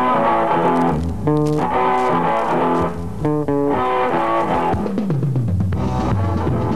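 Instrumental rock theme music with guitar, bass and drums, with quick runs of notes about a second in and again past the three-second mark.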